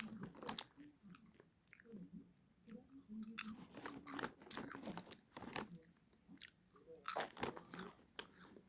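Salted popcorn being chewed close to the microphone: irregular crisp crunches, with louder clusters about four and seven seconds in.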